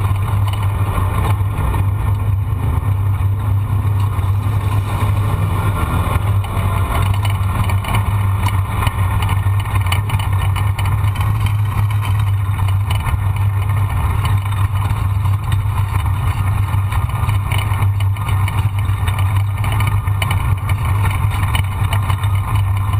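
A vehicle engine running at a steady speed with a constant low drone and a rushing noise over it, with no change in pitch or level.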